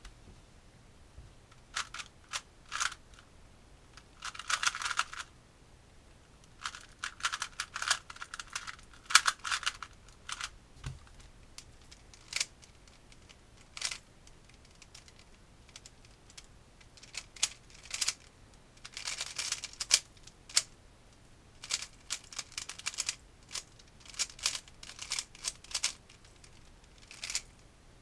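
Plastic Rubik's cube being turned fast: runs of rapid clicking and clattering turns, broken by short pauses and single clicks.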